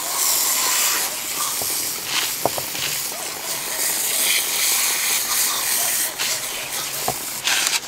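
Garden hose pistol-grip spray nozzle hissing steadily as a jet of water washes sand off freshly cast aluminium skulls.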